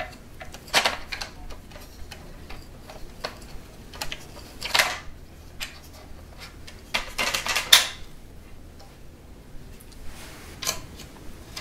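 Small metal screws and nuts clicking and rattling as they are fitted by hand through the bracket on an aluminium tripod leg and the metal accessory tray. Scattered light clicks, with a longer scraping clatter about five seconds in and a louder cluster of clicks between seven and eight seconds in.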